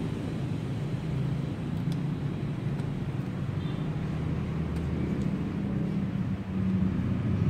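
Steady low background rumble, with a few faint light clicks as hose nose pliers work the hose clips on the engine's small vacuum hoses.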